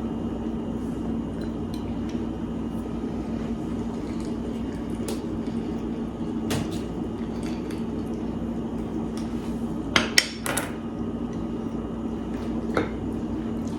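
Scattered knocks and clinks of kitchen utensils as a lime is cut and squeezed, with a quick cluster of three sharp knocks about ten seconds in, over a steady low hum.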